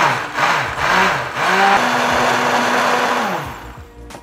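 Immersion (stick) blender puréeing tomato pizza sauce in a saucepan: the motor's pitch rises and falls about twice a second as the blade churns through the sauce, then holds steady for a little over a second before winding down near the end.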